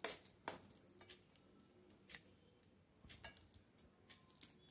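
Faint scattered clicks and soft squelches of a steel spoon scooping thick milk cream and dropping it into a stainless steel mixer-grinder jar of ice water. The sharpest clicks come at the very start and about half a second in.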